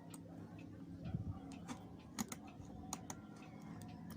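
Irregular light clicks and taps as the GoPro HERO4 Silver and small tools are handled during lens removal, over a low background hum.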